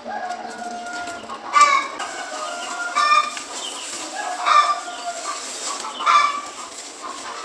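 Chickens clucking, with a louder call about every one and a half seconds.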